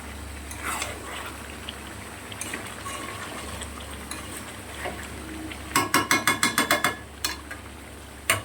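Spiced desi chicken sizzling in a pot as it is stir-fried with a metal spatula. About six seconds in, the spatula clanks against the pot about ten times in quick succession, ringing, then knocks a couple more times.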